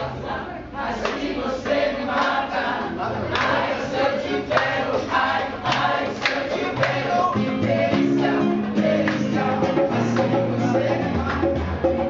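Reggae busking: two men singing together, one through a microphone, over a strummed acoustic guitar.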